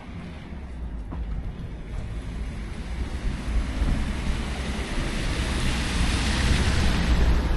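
A vehicle approaching along a snowy street, its tyre hiss building steadily to its loudest near the end, over a low wind rumble on the microphone.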